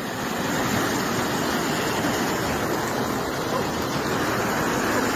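A river in flood, its water rushing steadily.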